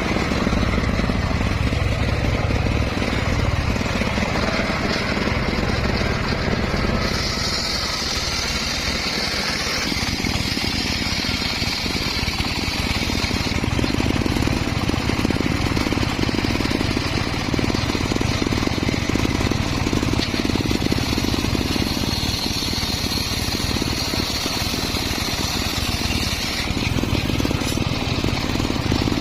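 Circular saw running steadily under power while cutting teak and mahogany. A higher whine comes in twice, for several seconds each time.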